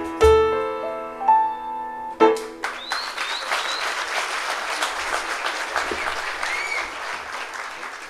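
A small ensemble of piano, nay flute and percussion plays its closing notes, ending on a final accented hit about two seconds in. Audience applause follows, with a few whistles, and fades out near the end.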